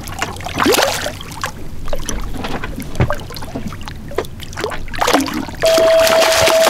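A small hooked shark thrashing at the surface beside a boat hull, irregular splashes of water. A little over five seconds in, a loud steady rushing noise with a steady whine sets in.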